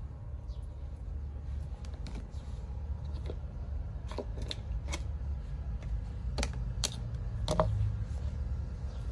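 Scattered sharp clicks, a few at first and then louder and closer together between about four and eight seconds in, over a low steady rumble.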